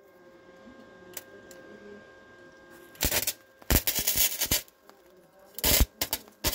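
Electric welder tack-welding a steel exhaust pipe: several short bursts of arc crackle, starting about three seconds in.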